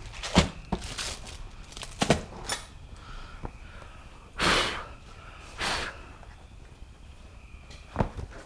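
Scattered sharp knocks and clunks of parts and tools being handled, with two short scraping swishes around the middle and a last click near the end.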